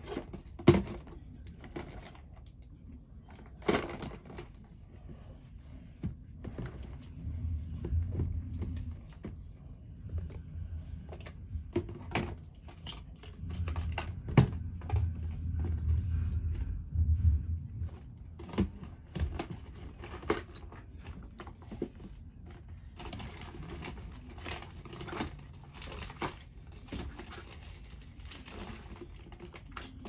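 Objects being handled and moved about: scattered clicks, knocks and rustling, the loudest a sharp knock about a second in, with a low rumble in the middle stretch.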